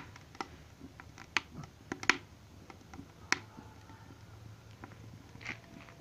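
Firewood burning in a popcorn-tin wood stove, popping with sharp, irregular snaps about one a second, the loudest about two and three seconds in. The owner puts the popping down to poor store-bought firewood that barely stays lit.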